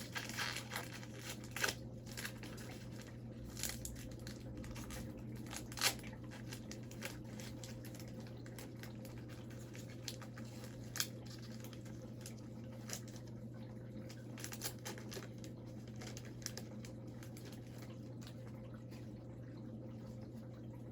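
Foil wrapper of a hockey card pack being torn open and crinkled, then the cards handled, with scattered crackles and a few sharper snaps. A steady low hum runs underneath.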